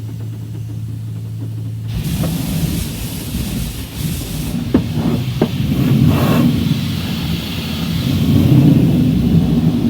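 Truck-washing noise: a steady low hum, then about two seconds in a hissing rush of water spray starts over a rumble, with a few sharp knocks near the middle.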